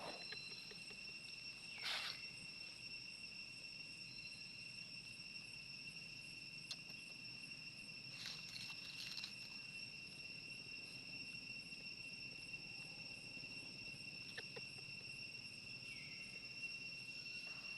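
Steady, high-pitched trilling of insects, like crickets or cicadas, with a few brief sharper sounds about two seconds in and again around eight to nine seconds in.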